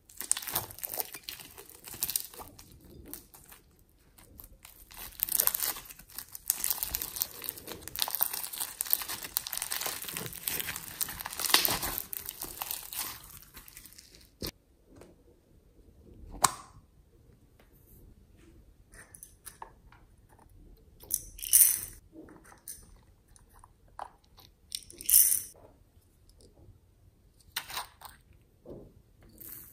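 Styrofoam foam beads crackling and crunching under fingers as a handful is scooped from a dish and pressed onto slime: a dense, continuous crackle that stops suddenly about halfway through. After that come scattered scrapes, taps and clicks from handling small containers.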